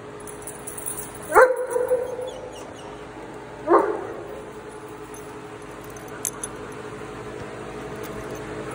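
A medium-sized dog barks twice, two sharp barks about two and a half seconds apart, over a steady hum.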